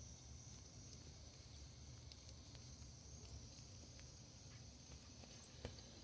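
Near silence: a faint low rumble and a thin, steady high-pitched hiss, with a few scattered small clicks.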